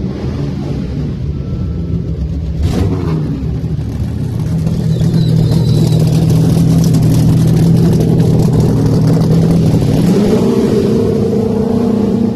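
NASCAR truck's V8 racing engine idling steadily at a fast idle, with the revs stepping up about ten seconds in.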